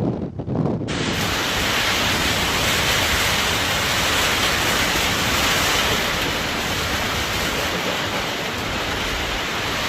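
Steady loud rushing of fast-flowing floodwater, cutting in abruptly about a second in after a brief lower wind-like rumble.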